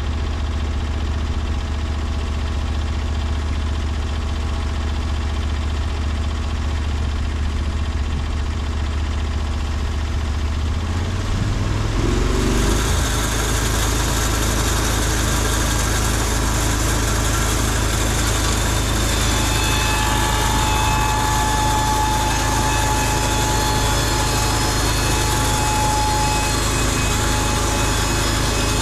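Norwood LumberPro HD36V2 portable band sawmill running: its engine hums steadily, then about twelve seconds in the engine note changes and a hissing cutting sound joins and continues, with a thin high whine added later on.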